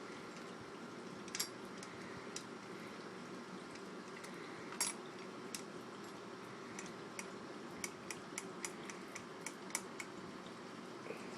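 Scattered light clicks and knocks of the rifle's metal and wood parts being handled and fitted back together: two sharper knocks early and midway, then a quick run of small clicks, about three a second, near the end.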